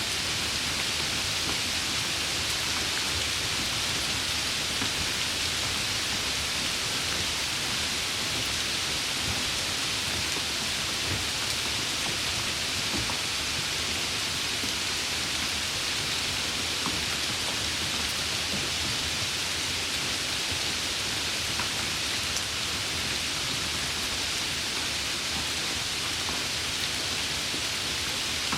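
Steady rain falling, an even hiss of many drops with scattered individual drop ticks.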